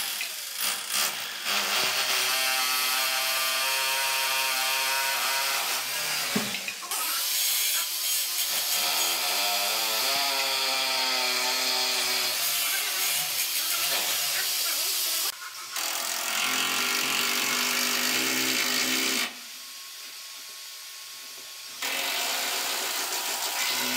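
Handheld electric drill running in several long bursts with short pauses, its motor pitch rising and falling as the trigger is worked.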